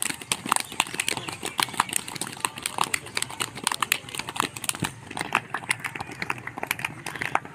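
Many people's feet landing and scuffing on a dirt field as a large group does jumping-jack drills: a dense, irregular patter of sharp knocks, several a second.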